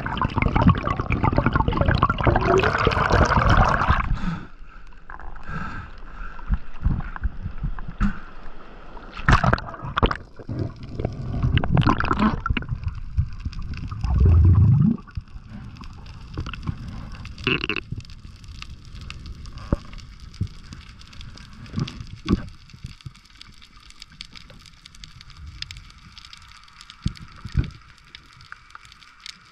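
Underwater sound on a diving camera: water rushing and gurgling past it for the first four seconds, then scattered clicks and knocks. A short, loud low rumble comes about halfway through, and the second half is quieter, with faint hiss and occasional clicks.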